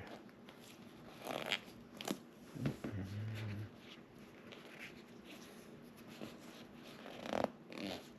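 Scattered short rubbing and scraping sounds of hands pressing and smoothing glued leather upholstery onto a couch, with a brief low hum about three seconds in and a louder scrape near the end.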